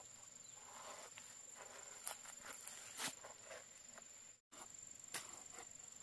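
Faint outdoor ambience: a steady high-pitched insect drone with scattered soft snaps and rustles of footsteps on leaf litter. The sound cuts out for a moment about four and a half seconds in.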